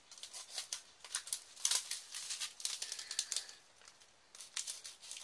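Diamond-painting rhinestones (drills) rattling and clicking against a plastic tray and container as they are handled. A run of small irregular clicks, thinning out near the end.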